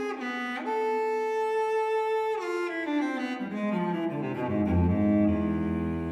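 Background music on bowed strings: a long held high note, then a run of notes stepping downward into a long, low held note.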